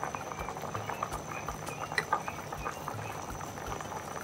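Large aluminium pot of meat and stockfish stock at a rolling boil, a steady stream of small bubbles popping and crackling under a layer of freshly added palm oil.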